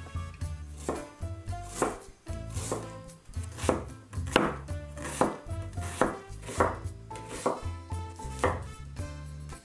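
A kitchen knife chopping an onion on a wooden cutting board, the blade striking the board in steady strokes a little more than once a second.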